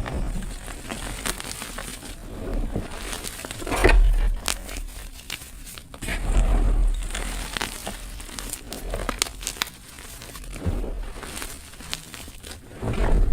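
Gym chalk and dried flower petals being crushed: a run of crisp crackles and crumbling crunches, with louder crunches about four seconds in, around six to seven seconds, and just before the end.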